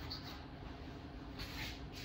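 Short scratchy strokes of a small hand-held abrasive rubbed over the dented aluminium bonnet of a Nissan R32 Skyline GT-R. A faint scuff comes near the start, and a louder rub about a second and a half in.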